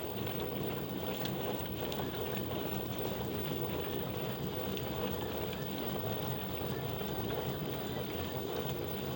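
LG F1022NDR direct-drive washing machine running, a steady, even noise with a low hum under it.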